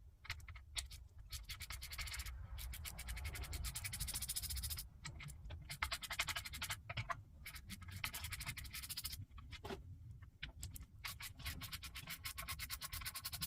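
Ratchet wrench clicking in rapid runs as bolts are backed out of the timing cover of a turbo Buick V6, with short pauses between runs.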